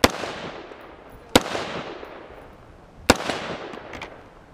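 Three gunshots about a second and a half apart, each followed by a long echo that dies away.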